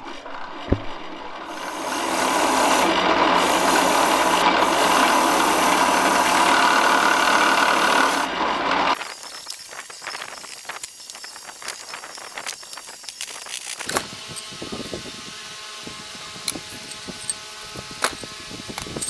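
Brass wire wheel spinning in a drill chuck, scouring baked-on grease off a machine part: a steady harsh rasp that builds up a second or so in and holds for about seven seconds. After an abrupt change it gives way to quieter squirts from a spray bottle of degreaser and light metal clinks of bearings being handled in a plastic tub.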